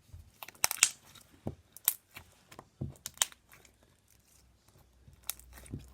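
Floam slime, slime packed with foam beads, being squeezed and pressed by hand, giving irregular clicking and crackling pops.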